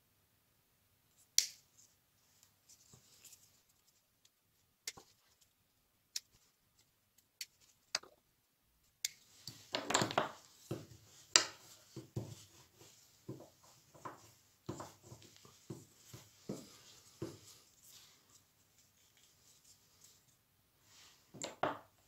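Scissors snipping off the cord ends of a rope knob covering: a handful of sharp single snips about a second apart. After them comes about ten seconds of denser rubbing and knocking as the knotted wooden fid is handled on a wooden bench.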